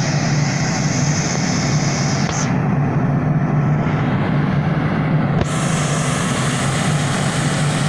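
Fire truck engine idling: a steady low drone.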